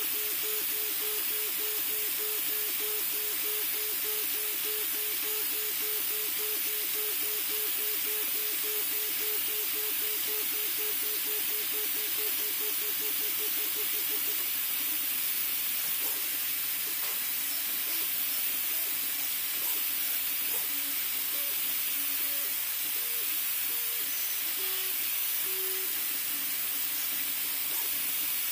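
Duocube 3D printer printing at 150 mm/s: a steady hiss of cooling fans over the singing of the stepper motors. For about the first half the motors make a fast, even back-and-forth pattern of short tones; after that the tones shift irregularly between different pitches.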